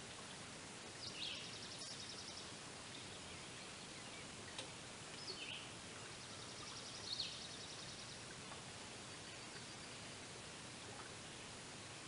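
Faint songbird calls, a few short falling notes and buzzy trills, over a steady hiss.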